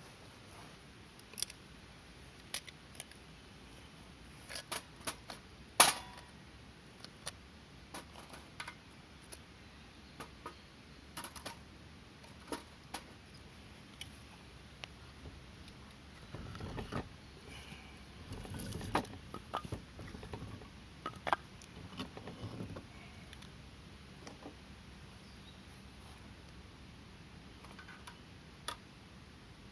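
Wood fire crackling in a folding fire pit: irregular sharp snaps and pops, with a few stretches of denser rustling crackle in the middle.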